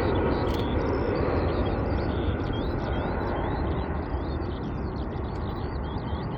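Airbus A320-214's CFM56 jet engines roaring and slowly fading. Small birds chirp over the top.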